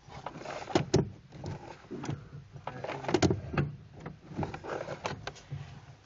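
Irregular metallic clicks and clunks from a Camaro's clutch linkage as it is moved and fitted by hand. The two loudest knocks come about one second and three seconds in.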